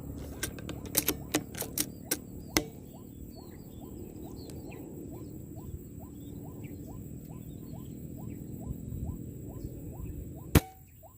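A long run of short rising chirps, about three a second, over a steady background hiss. Several sharp clicks come in the first two and a half seconds, and one loud sharp crack comes near the end.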